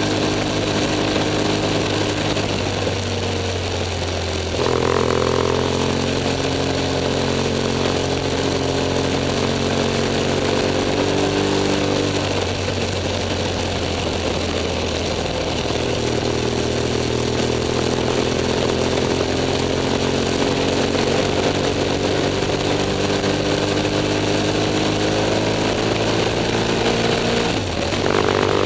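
BMW F 800 S parallel-twin engine running while the motorcycle is ridden, over a steady rush of wind and road noise. The revs jump about five seconds in and fall away around twelve seconds. From about sixteen seconds they climb slowly, then dip briefly and rise sharply near the end.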